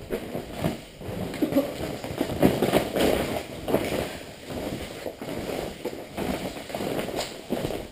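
Several people's footsteps crunching and clattering over broken board panels and insulation debris, an irregular run of cracks and knocks that peaks about two and a half to three seconds in.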